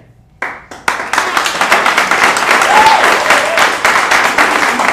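Audience applauding, breaking out about a second in and holding steady, with a brief voice call from the crowd partway through.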